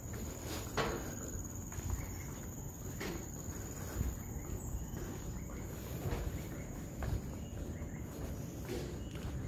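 Footsteps on an elevated forest walkway, about one step a second, over a steady high-pitched insect drone.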